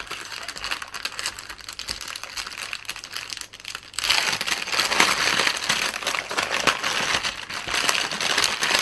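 Clear plastic bag crinkling as it is handled and opened by hand to take out a bundle of embroidery floss; the crinkling gets louder about four seconds in.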